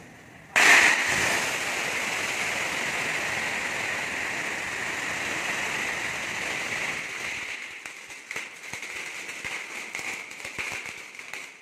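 A string of firecrackers goes off about half a second in, in a rapid, unbroken crackle. After about seven seconds it thins to scattered single pops.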